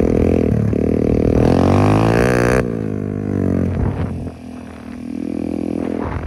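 Motocross bike engine running hard under load: its pitch climbs for about a second, drops sharply about two and a half seconds in, and climbs again in the second half.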